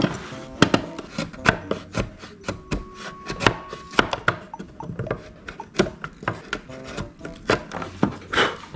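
Short scraping and rubbing strokes with sharp clicks, as a plastic battery adapter is filed down by hand to fit a 40V impact driver. The strokes come irregularly, about one or two a second, over quiet background music.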